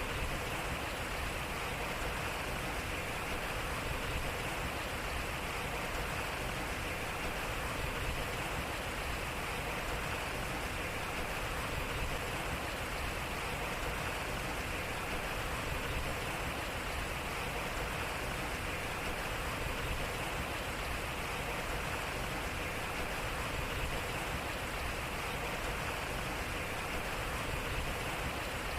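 Water running and splashing steadily at a turning waterwheel, an even rush with a slight swell about every four seconds.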